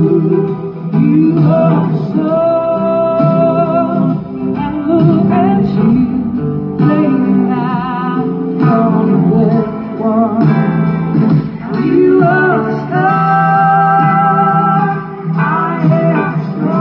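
Blues-rock band playing live, with a guitar line held and bent out in front of the band, heard from far back in the audience of a large venue.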